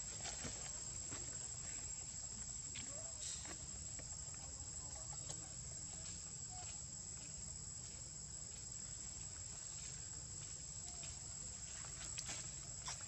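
Insects, likely crickets or cicadas, giving a steady high-pitched drone, over a low background hum, with a few faint short chirps now and then.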